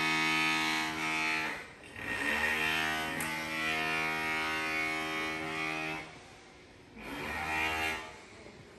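Background music of long held notes, each sustained for a second or more, with a few short pauses between phrases.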